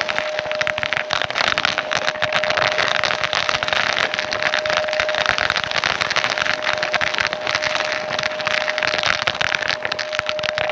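Upright vacuum cleaner running over carpet, its motor giving a steady high whine, with a dense rattle of clicks as small debris like coins and grit is sucked up through it.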